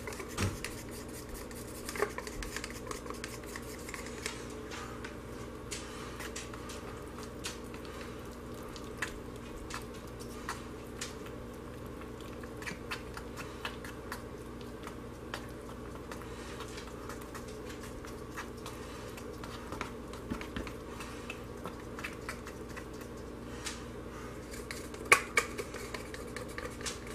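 Small spoon stirring blue colorant into a pocket of thick hot process soap in a crock pot: scattered light clicks and scrapes of the spoon against the soap and pot, over a steady low hum.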